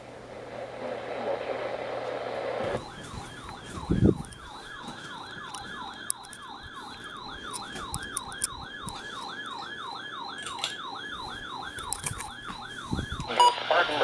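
Weather radio's built-in alert alarm for a flood warning: a warbling, siren-like tone sweeping about three times a second, starting about three seconds in after a rising hiss and cutting off just before the end, when the broadcast voice comes in. A knock about four seconds in is the loudest moment.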